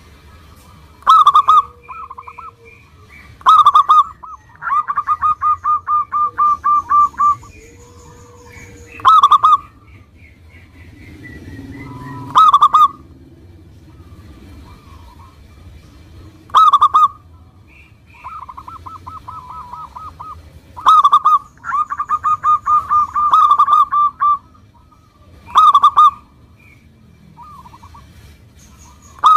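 Zebra dove (perkutut) cooing: loud short calls every few seconds, twice running into a rapid string of staccato notes lasting about two seconds.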